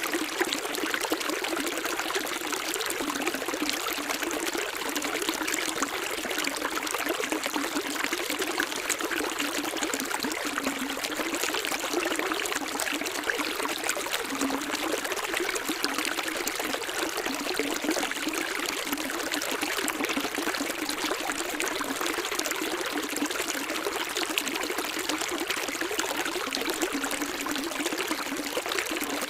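Running water splashing and trickling steadily, like a small stream or cascade, with no single events standing out.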